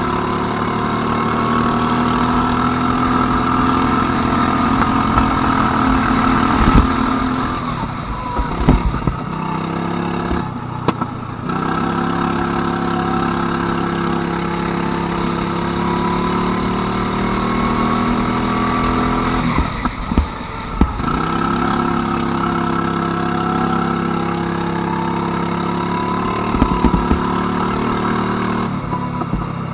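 Go-kart engine running hard, its pitch climbing steadily for several seconds at a time and falling off three times as the kart lifts and slows, with a few sharp knocks.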